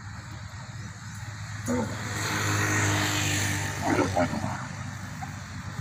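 Dromedary camel bellowing at another camel as they spar: a loud, rough call lasting about two and a half seconds, starting a little under two seconds in and ending in a few short choppy pulses. A steady low hum runs underneath.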